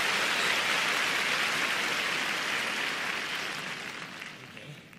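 Large arena crowd applauding, a dense, steady clapping that fades away over the last couple of seconds.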